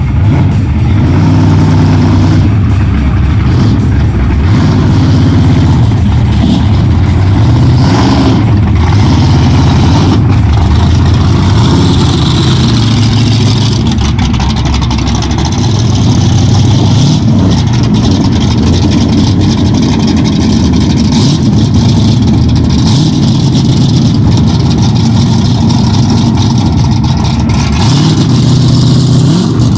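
Ford 460 big-block V8 of a 1972 Gran Torino drag car running loudly and steadily, with small rises and falls in engine speed.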